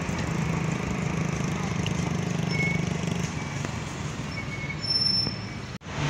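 Car engine and road noise heard from inside a moving car's cabin: a steady low hum, with a brief dropout near the end.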